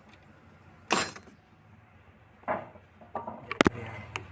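Scattered metal clinks and knocks of tools and engine parts being handled: a sharp one about a second in, another past the middle, and a quick cluster near the end that holds the loudest.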